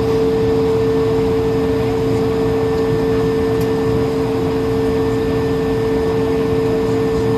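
Steady drone of an Airbus A220-300 on the ground before takeoff, heard from inside the aircraft: an even rushing noise with two steady low hums that do not change.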